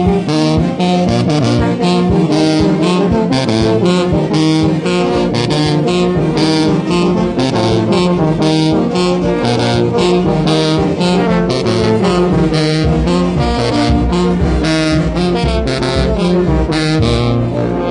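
Sousaphone playing a moving bass line in brass music, with other brass parts and a steady percussive beat.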